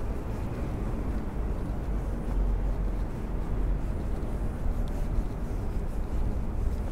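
Steady low rumble of outdoor city street ambience, even throughout with no distinct events.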